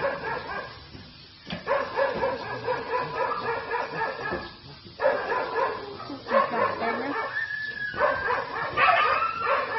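Dog whining and crying in long, drawn-out pitched cries, several stretches of a second or more with short breaks between, one sliding upward near the end.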